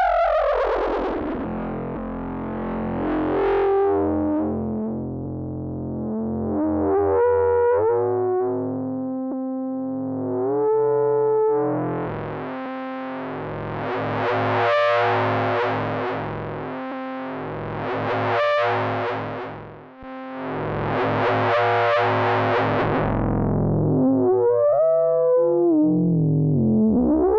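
K-ACCUMULATOR synthesizer module playing on its own, its timbre morphing under modulation: a stack of pitched tones that brightens and darkens in slow swells about every three and a half seconds.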